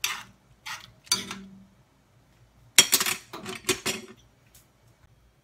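A spoon stirring and scraping in a stainless steel saucepan of wet, chunky vegetable stew. There are three short scrapes in the first second and a half, then a quick run of scrapes and clinks against the pan about three to four seconds in.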